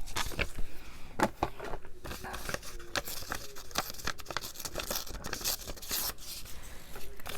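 Paper being torn and handled by hand: a run of short rips and crinkles.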